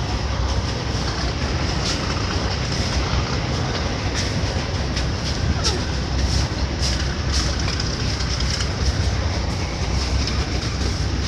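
Steady low rumble of a ferry's diesel engines, with a constant wash of noise and scattered sharp clicks.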